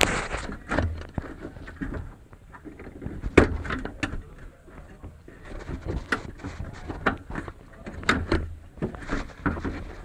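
Hands working inside a BMW E36 front door cavity: irregular clicks, knocks and rubbing against the door's inner sheet metal and wiring, with the sharpest knock about three and a half seconds in.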